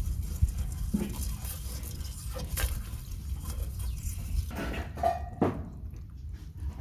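Live crabs scrabbling in a metal pot with a little water, their shells and legs tapping and clicking against the metal, with a few sharper knocks.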